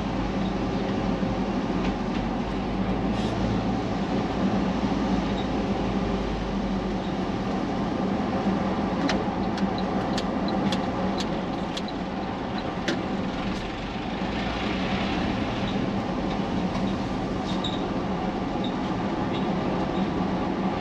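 Steady engine and road noise of a vehicle driving, with a deep rumble that eases about a third of the way in. Several sharp ticks or rattles come in the middle.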